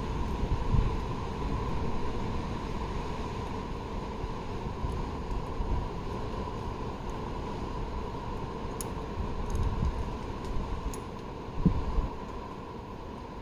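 Outdoor wind buffeting the microphone, a rumbling hiss with a few stronger gusts (about a second in, and near ten and twelve seconds), over a faint steady hum.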